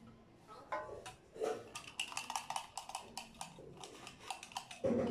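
Candies rattling inside a small plastic candy tube as it is shaken: a quick run of sharp clicks lasting about two seconds. A low thump comes near the end.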